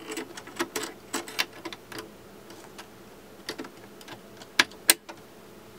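Small metal clicks and taps as the steel needle plate of a Singer 6215C sewing machine is handled and fitted back over the bobbin area, with two louder sharp clicks close together near the end as the plate seats.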